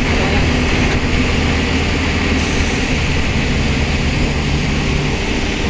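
Diesel engine of an Escorts pick-and-carry crane running steadily with a low drone.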